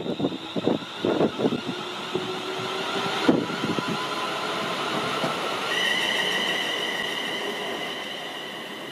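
ScotRail Class 380 Desiro electric multiple unit passing close by: its wheels clack quickly over the rail joints in the first couple of seconds, with one louder knock a little later. The train's rush then carries on, and a steady high whine comes in about halfway through, fading slowly as the train draws away.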